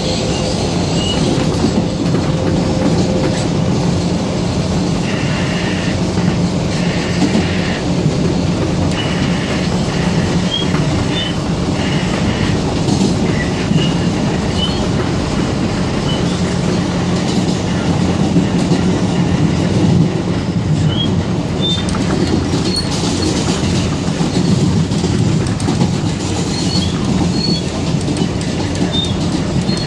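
Inside a moving R160B Siemens subway car: a steady loud rumble of wheels and running gear on the track, with clickety-clack from the rails. A run of short, high wheel squeals comes between about five and twelve seconds in, and small squeaks are scattered through the rest.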